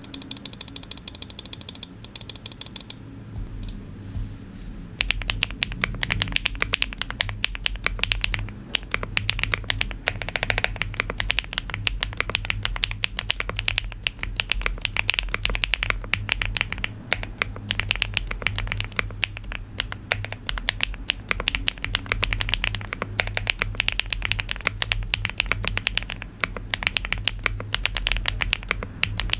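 Mechanical keyboard, an Elecfox Linky 87 with a plastic case, Busun Taichi switches and PBT Cherry-profile keycaps, being typed on fast and continuously from about five seconds in, with a deep, thocky key sound. A brief, different sound comes first, for about three seconds.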